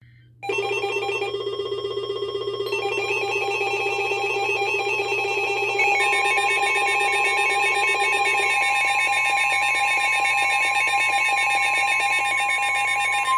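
Electronic emergency alert tones ahead of a NOAA Weather Radio severe thunderstorm warning. A warbling alarm with several beeping tones is joined about six seconds in by a steady high attention tone, which holds until the broadcast voice begins.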